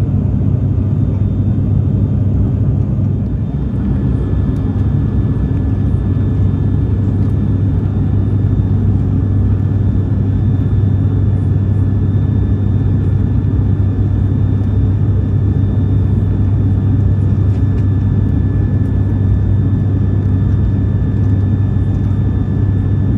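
Cabin noise of an ATR 72-600 turboprop airliner in flight: the steady low drone of its propellers and engines heard from inside the cabin, with a faint steady whine above it.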